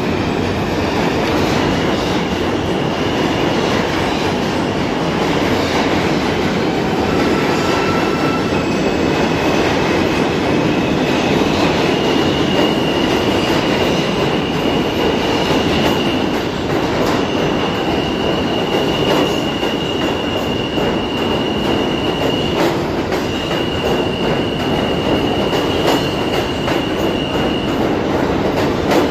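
New York City subway train pulling out of an underground station and running past. There is a steady rumble of wheels on rail, and for much of the time a high, steady squeal sits over it, shifting pitch a few times.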